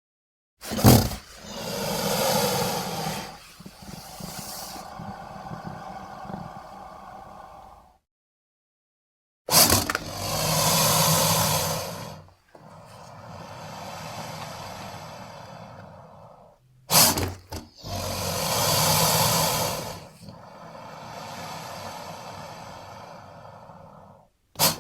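Designed monster roars for a were-hyena, layered from creature and dinosaur roar effects: three alike calls, each opening with a sharp crack, swelling into a loud roar of about three seconds, then trailing off in a quieter rasp, with short silences between.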